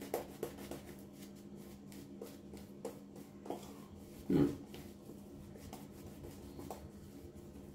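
Synthetic-knot shaving brush stroked over the face, painting on thick, pasty shaving lather: faint, quick brushing strokes over a faint steady hum, with one brief louder low sound about four seconds in.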